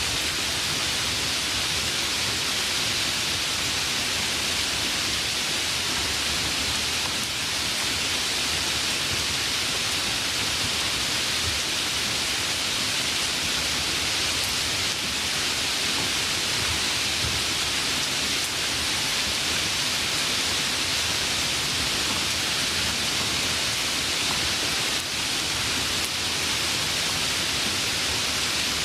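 Steady rain falling, an even hiss with no breaks, gusts or thunder.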